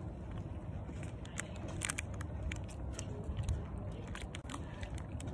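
Crunching bites into chocolate-coated ice cream bars and a cookie ice cream sandwich, close to the microphone: a quick, irregular series of crisp cracks and chewing.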